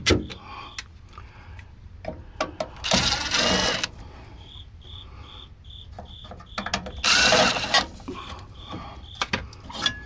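A cordless drill spins out sheet-metal screws from a furnace access panel in two short runs, about three seconds in and again about seven seconds in, its motor pitch rising and falling. Between the runs a high chirp repeats evenly, about three times a second.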